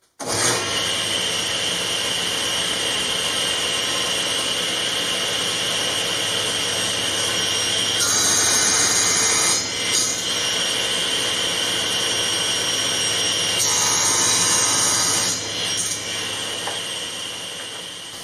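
Grizzly G1023SL 10-inch table saw switching on and running steadily, with two louder stretches about eight and fourteen seconds in as the blade crosscuts boards on a sled. The sound falls away near the end.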